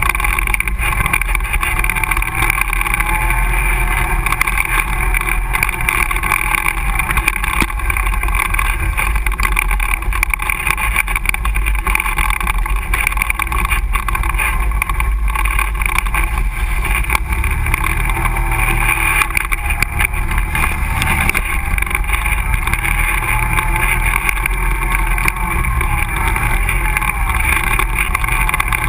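ATV engine running steadily while riding a trail, its pitch rising and falling slightly with the throttle.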